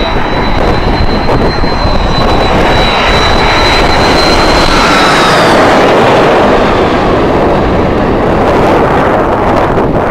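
Jet airliner passing low overhead, its engines a loud, dense rush that builds to a peak about six seconds in, with a steady high whine that drops in pitch and fades about five seconds in as the aircraft goes by.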